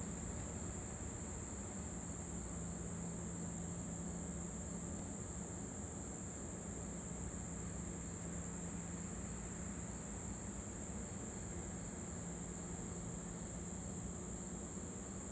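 Chorus of insects, likely crickets, making a continuous high-pitched buzz, with a steady low hum beneath it.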